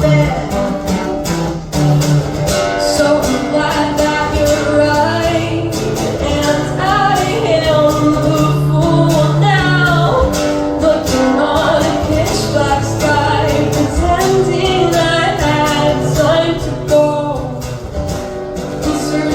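Band playing a song live, with a sung lead vocal over guitar and steady low bass notes.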